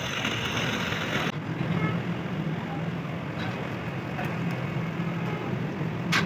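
Engine running steadily with a low hum, with two sharp knocks right at the end.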